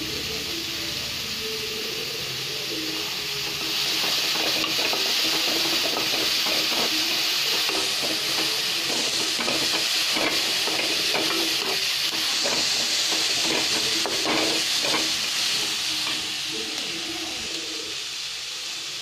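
Shredded vegetables sizzling in hot oil in a metal kadai while a wooden spatula stirs and scrapes them. The sizzle gets louder about four seconds in, with quick spatula scrapes and taps through the middle, and eases off near the end.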